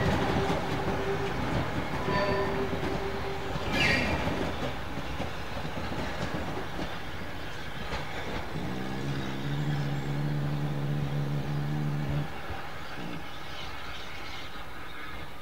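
Saddle-tank steam locomotive hauling its coaches away along the track, the sound fading as it goes, with a steady wheel squeal over the first few seconds and a sharp burst near four seconds in. About nine seconds in, a low steady note sounds for nearly four seconds.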